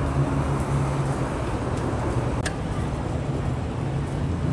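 Steady low rumble with a constant low hum, and one short click about two and a half seconds in.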